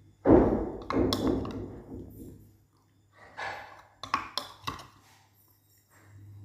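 A metal spoon clicking and scraping against a glass bowl while someone eats, with several sharp clinks about four seconds in. A louder muffled rush of noise comes near the start and fades over a couple of seconds.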